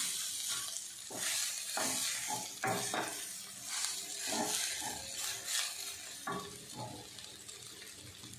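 Wooden spatula stirring and turning cooked rice in a stainless steel kadai, with repeated scrapes and light knocks against the pan over a soft sizzle of oil on a low flame. The stirring strokes thin out near the end.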